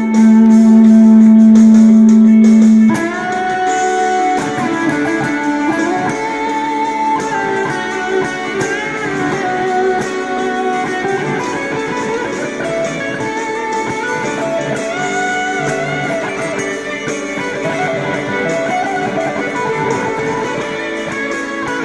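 Electric guitar played through a Keeley-modded BOSS BD-2 Blues Driver overdrive pedal in its Phat mode, improvising a lead in D. A loud note is held for about the first three seconds, then the playing moves into a run of single-note phrases with string bends.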